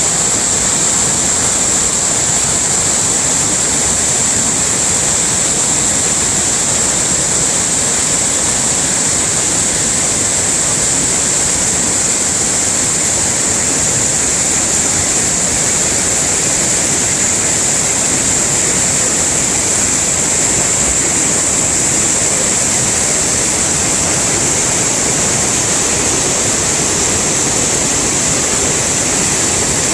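Waterfall rushing: a loud, steady wash of falling water with no change throughout, and a constant high hiss riding on top.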